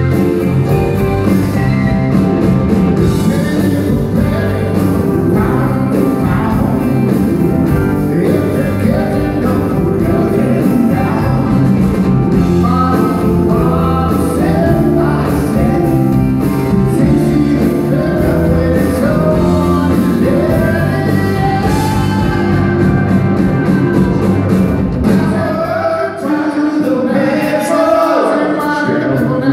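Live rock band playing: drums, electric guitar and keyboards, with singing. Near the end the low end drops away and the singing comes to the front.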